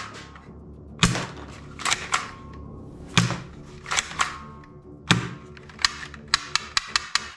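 Sharp plastic clacks and clicks of a toy rifle being handled and worked, with a quick run of lighter clicks near the end, over soft background music.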